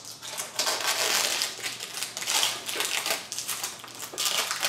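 Clear plastic wrapping on a new headlight crinkling and rustling irregularly as it is handled.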